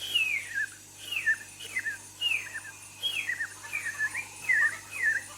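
A man imitating an invented jungle bird by whistling: a run of short whistled calls that fall in pitch, about two a second.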